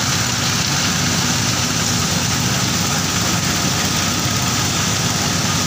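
Engine of a corn mill running steadily at constant speed, a continuous loud drone with no changes.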